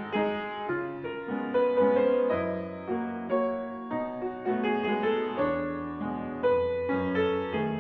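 Background piano music: a steady run of notes and chords, each struck and then fading.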